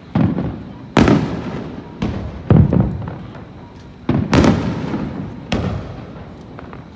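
Aerial fireworks shells bursting, about seven sharp bangs in quick, uneven succession, two of them close together near the middle, each followed by a long rumbling decay.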